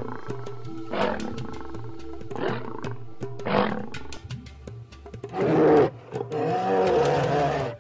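Lion roaring in three short grunting roars about a second apart, followed about five seconds in by a longer, louder growling roar.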